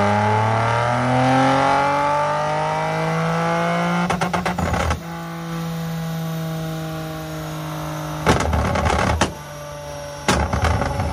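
Infiniti Q60 engine running hard on a chassis dyno through a Fast Intentions cat-back exhaust with 10-inch sport mufflers and full downpipes. The revs climb steadily for about four seconds, then the note holds steadier and slightly lower, broken three times by bursts of rapid popping and crackling, about four, eight and ten seconds in.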